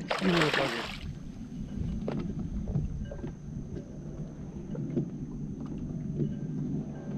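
A hooked fish splashing at the surface for about a second at the start, then small waves lapping and slapping against the boat's hull, with light knocks.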